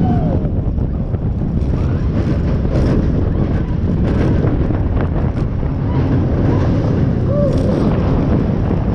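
Steady loud rush of churning water on a river rapids raft ride, with wind buffeting the microphone.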